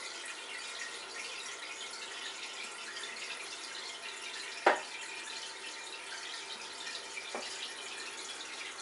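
Steady trickling hiss of aquarium water moving through the tank's filter. A single sharp tap about four and a half seconds in, and a fainter one near the end.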